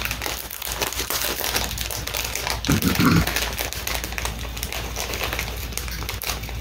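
A Hello Panda strawberry cookie packet crinkling and crackling in irregular bursts as it is handled and opened by hand.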